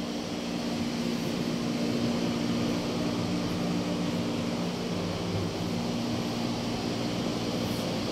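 A steady mechanical hum with a constant low drone and a wash of noise.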